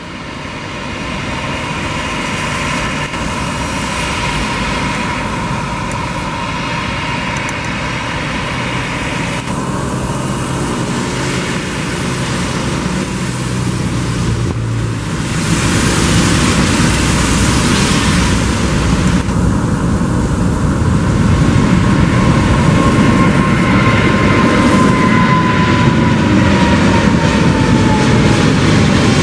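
Boeing 777F's GE90 jet engines at takeoff thrust, the noise building as the freighter rolls and lifts off, mixed with the hiss of heavy rain. Near the end the engines' whine falls in pitch as the climbing jet passes.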